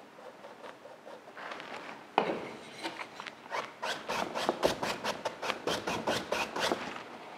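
A paper towel rubbed briskly in the hand, wiping paint off a paintbrush. There is a sharp crinkle about two seconds in, then a fast run of rubbing strokes, about four a second, that stops shortly before the end.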